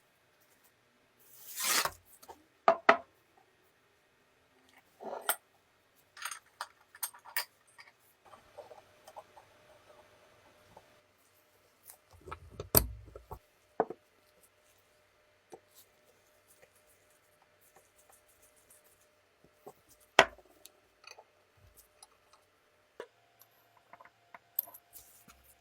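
Small metal parts being handled and fitted by hand: scattered clicks, knocks and scrapes, with a dull thump about halfway and a sharp click later on.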